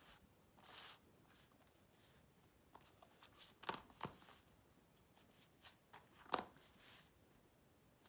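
Near silence with a few faint taps and clicks of smartphones being handled, turned over and set down on a tabletop: a brief rustle about a second in, two sharp clicks near the middle, and the loudest tap later on.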